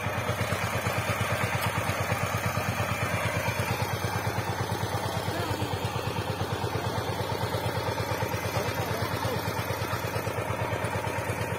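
Single-cylinder diesel engine of a walk-behind power tiller idling, a steady, even beat that holds unchanged throughout.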